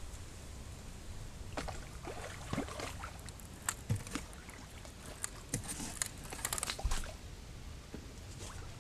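Small irregular splashes and sloshes of water from a hooked fish being played and netted at the edge of a jetty, over a low rumble of wind on the microphone.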